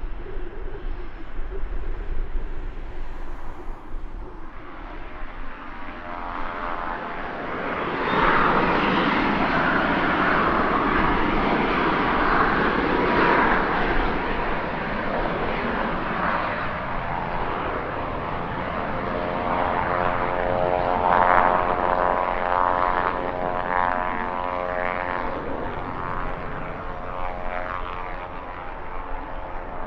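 Pilatus PC-24 twin-turbofan business jet taking off: jet engine noise swells from about six seconds in, is loud by eight seconds and stays loud, with a wavering, phasing tone in the middle of the sound about twenty seconds in. Wind buffets the microphone before the jet noise builds.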